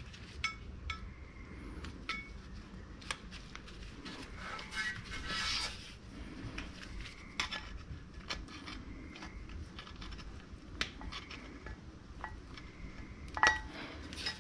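Metal tools and brake parts clinking and scraping, with scattered light clicks and a louder metallic clank near the end.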